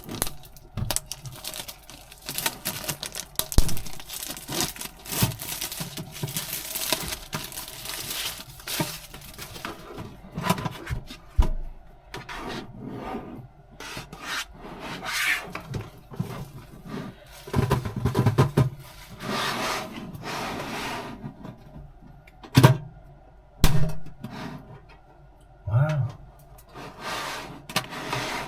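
Hands handling the packaging of a Pokémon tin box: irregular rubbing, scraping and rustling, with a few sharp knocks near the end.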